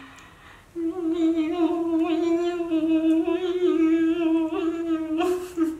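A person humming one long, nearly level note with small wavers in pitch, starting about a second in and stopping near the end.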